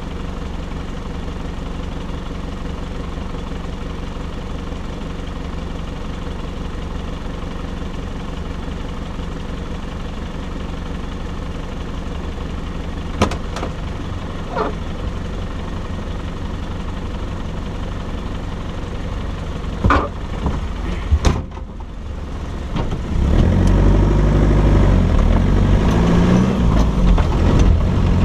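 Off-road vehicle's engine idling steadily, with a few sharp knocks in the middle. About three-quarters of the way through it gets louder and rougher as the vehicle pulls away along the gravel track.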